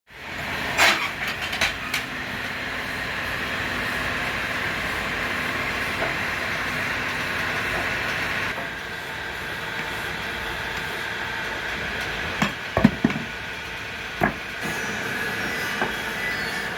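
Wood-turning lathe running steadily, with a few sharp knocks near the start and a cluster of knocks about two-thirds of the way through.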